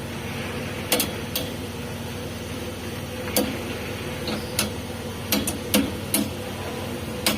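Scattered sharp metallic clicks and knocks of hand tools on engine parts during the assembly of a diesel engine, about nine at irregular intervals, over a steady low hum.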